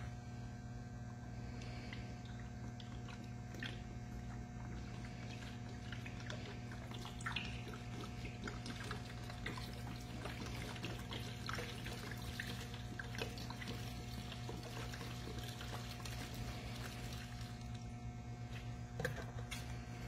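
Liquid poured from plastic bottles into a plastic tub, trickling and splashing with small drips and clicks: asphalt remover and water going in over a layer of tar. A steady electrical hum runs underneath.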